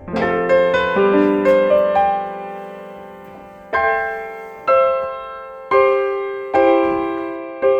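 Background piano music: a quick run of notes, then slow chords struck about once a second, each left to ring and fade.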